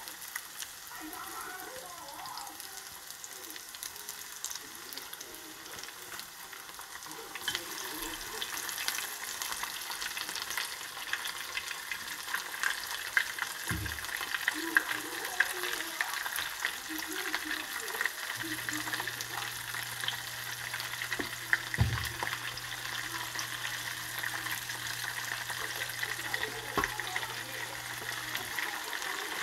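Battered vegetable fritters deep-frying in hot oil in a wok, a steady crackling sizzle that grows louder about eight seconds in.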